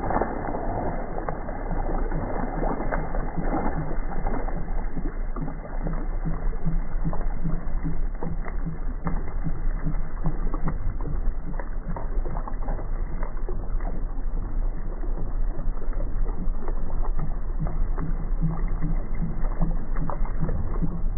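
Water splashing and sloshing against a boat's hull as a hooked northern pike thrashes at the surface, with a steady low hum and many small knocks running through it.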